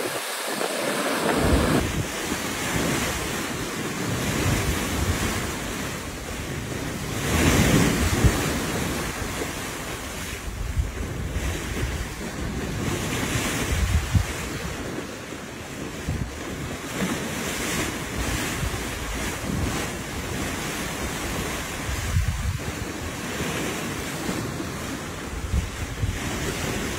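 Sea waves breaking and rushing past a moving ship's side, with wind gusting across the microphone. The wash swells and eases, loudest about seven to eight seconds in.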